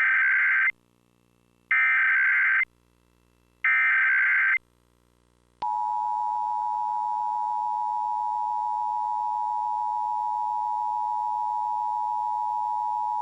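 Emergency Alert System broadcast signal for a nationwide test. First come three harsh, screeching digital header bursts, each just under a second long and about two seconds apart. About five and a half seconds in, the steady two-tone attention signal (853 and 960 Hz together) starts and holds.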